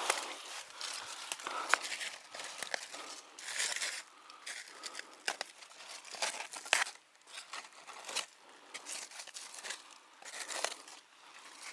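Dry leaves and loose soil crackling and rustling under a hand rummaging in a rock crevice, with scattered sharp clicks of small stones.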